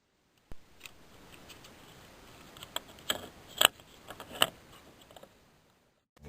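A handful of sharp, irregular clicks and snaps from parts and tools being handled while a steering column is put back together, the loudest a little past the middle.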